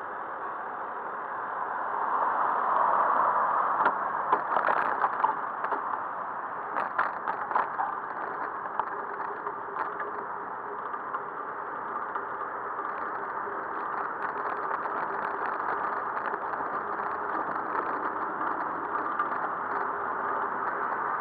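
Steady traffic and road noise heard while riding a bicycle. A few seconds in comes several seconds of rattling and clicking, then scattered clicks.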